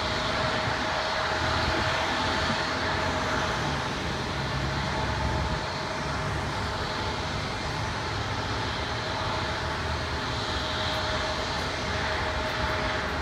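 Steady noise of passing highway traffic mixed with the steady hum of a twin-engine jet airliner's engines at low power on the taxiway.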